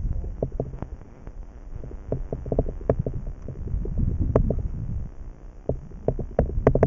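Wind buffeting the microphone in a low, uneven rumble, with scattered light clicks and knocks coming several times a second, more of them near the end.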